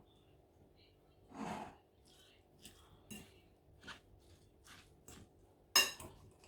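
Steamed broccoli being mashed in a bowl: a series of soft, irregular squishing crunches, with a sharp ringing knock of the utensil against the bowl near the end.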